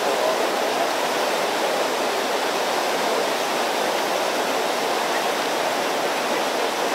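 Steady rushing of river rapids running over rocks.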